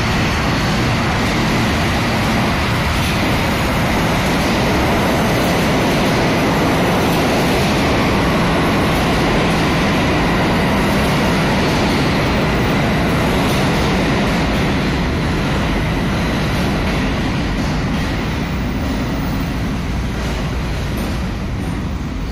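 R68 subway train running into the station beside the platform, a loud steady rumble of wheels on rail with a thin steady high whine over it. It eases off over the last few seconds as the train slows.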